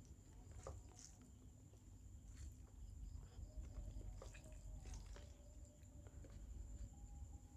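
Faint eating sounds: scattered soft mouth clicks and chewing while eating rice and fish curry, over a faint steady high-pitched whine.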